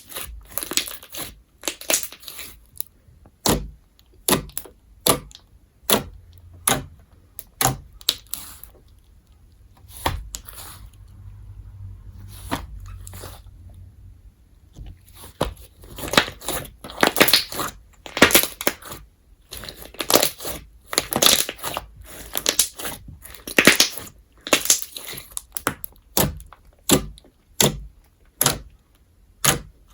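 Hands squeezing and pressing crunch slime, glossy glue slime packed with foam beads, giving crackling crunches about one to two a second. A quieter stretch comes in the middle before the crunching picks up again.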